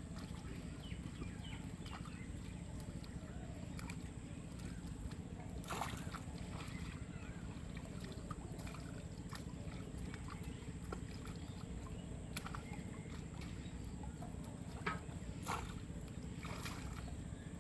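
Pond water sloshing and splashing, with a few sharper splashes and knocks scattered through, over a steady low rumble.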